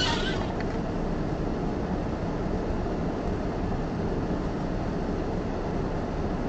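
A stopped vehicle's engine idling, a steady low rumble heard from inside the cab through the dashcam's microphone.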